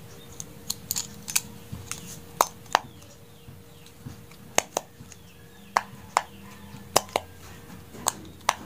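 A simple dimple fidget's silicone bubbles being pushed in and out, giving sharp clicks at irregular spacing, often two in quick succession.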